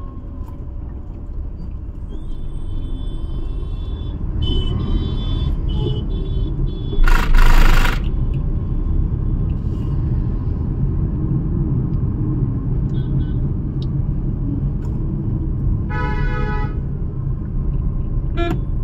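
Slow city traffic heard from inside a vehicle: a steady low engine and road rumble, with other vehicles honking in several short toots, a cluster around five seconds in and another near sixteen seconds. About seven seconds in comes a loud hiss lasting about a second.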